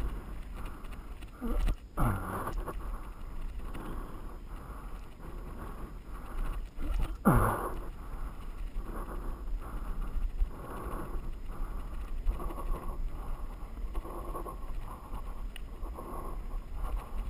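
Mountain bike descending a loose gravel trail: wind rumbling on the handlebar camera's microphone over the rattle of the bike and its tyres on the gravel. Two sudden louder swells about two and seven seconds in.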